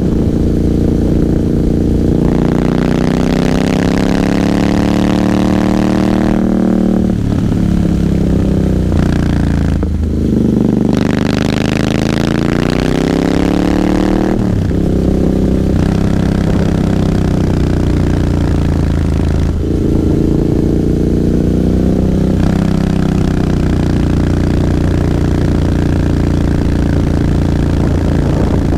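Royal Enfield Interceptor 650's parallel-twin engine heard from the saddle while riding: it rises in pitch twice under acceleration in the first half, each climb broken by a sudden drop, then runs at a fairly steady pitch with a few brief dips.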